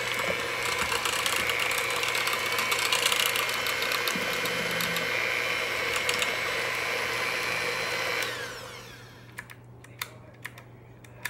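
Electric hand mixer running steadily with its beaters in thick soup, switched off about eight seconds in and winding down with a falling whine. A few light clicks follow near the end.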